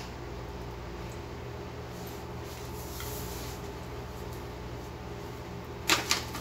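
Steady low room hum, then near the end two quick sharp crinkles or knocks a fraction of a second apart as a hand picks up food from the table.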